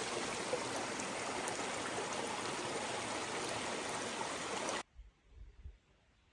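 Small mountain brook rushing and babbling steadily over rocks. It cuts off abruptly about three-quarters of the way through, leaving only a faint low rumble and a few light clicks.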